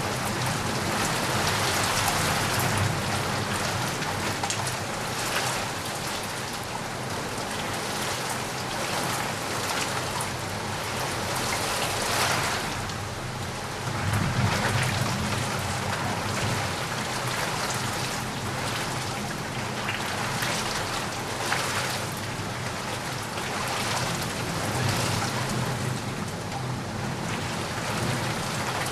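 Steady heavy rain falling on surfaces, a dense even hiss of drops, with low rumbles of distant thunder swelling in a couple of times.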